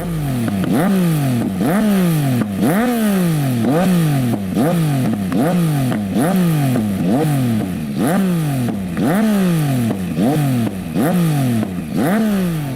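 Sport motorcycle engine with an Akrapovic slip-on exhaust being free-revved in quick throttle blips, about three every two seconds. Each time the pitch shoots up and then falls back as the revs drop.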